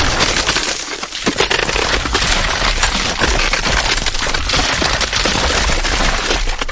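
Ice cracking: a dense, unbroken run of sharp crackles and snaps.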